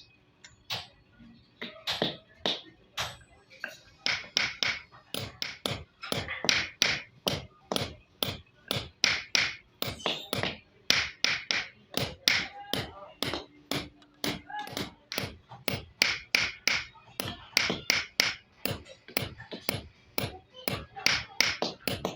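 Hammer blows on steel in a quick, steady rhythm, about three sharp strikes a second, kept up without a break.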